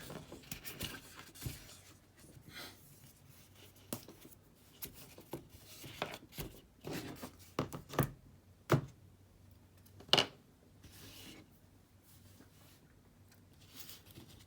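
Small heat sink parts and their packaging being handled: irregular clicks and taps with short bursts of rustling, the sharpest click about ten seconds in.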